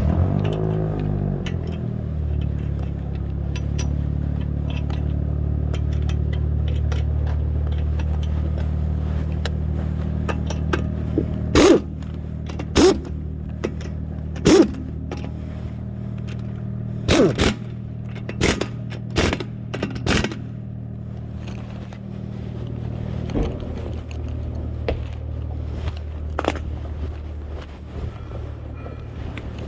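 A motor starts with a sweep in pitch and then runs at a steady low hum, with a series of sharp metallic knocks in the middle, typical of tools and wheel parts being handled during a tyre change.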